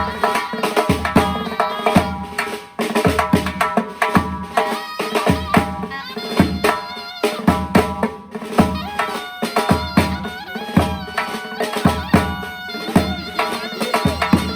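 Surnay, the Uzbek double-reed shawm, playing a bright, ornamented folk melody over a steady rhythm of drum beats.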